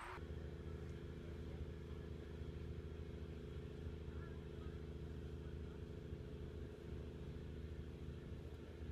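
A boat's engine running steadily under way: an even, low drone with no change in pitch.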